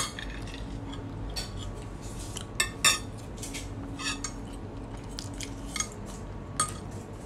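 Fork and spoon clinking and scraping against a ceramic plate of rice, in scattered sharp clicks, the loudest a pair just before three seconds in.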